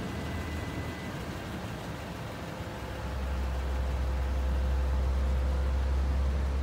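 Steady low rumble with a hiss inside a pickup truck's cab, growing louder about three seconds in.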